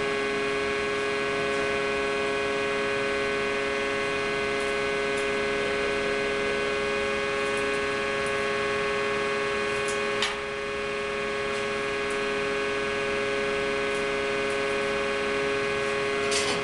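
Steady machine hum from a compression-testing machine running, several held tones over a low rumble, with one sharp click about ten seconds in.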